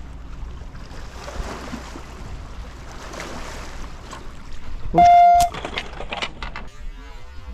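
Wind rumbling on the microphone with the wash of water along the shore. About five seconds in, a short, loud, steady beep-like tone cuts in, followed by a few sharp clicks.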